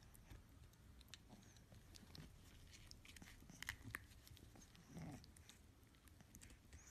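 Faint clicking and scraping of a pug puppy's teeth gnawing a chew bone, with a couple of slightly louder clicks about halfway through.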